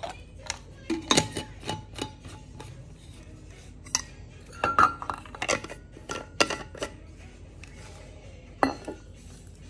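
Stainless steel vacuum flask and its metal cup handled, giving about a dozen irregular metallic clicks and knocks, a few with a brief ring.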